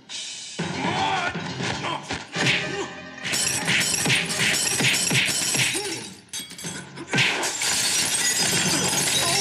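Fight-scene sound effects: a run of sharp punch and kick hits, then glass shattering and wood breaking in a long crash as a body is thrown through a window, under dramatic film score music.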